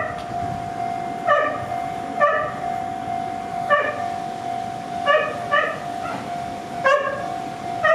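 A dog barking repeatedly, roughly once a second and sometimes twice in quick succession, over a steady high tone from the level crossing's warning alarm and a low rumble.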